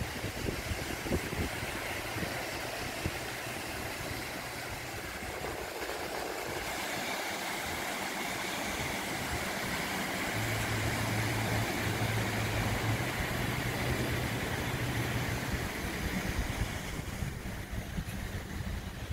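Beach ambience: small waves washing on the shore and wind rumbling on the microphone, with a low steady engine hum for several seconds midway.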